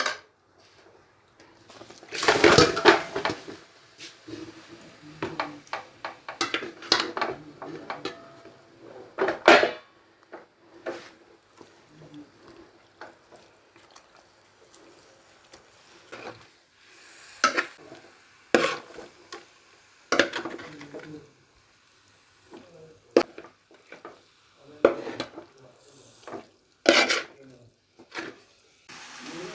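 A metal spoon clinking and scraping against a cooking pan as chicken pieces are added to the roasted masala and stirred, with a longer, louder clatter about two seconds in.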